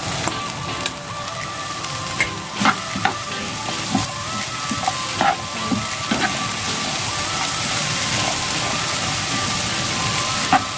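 Wet, freshly rinsed cabbage, onion and frozen mixed vegetables sizzling in a hot frying pan as they go in, a steady hiss of water being cooked off. A spatula stirring through them scrapes and taps against the pan now and then.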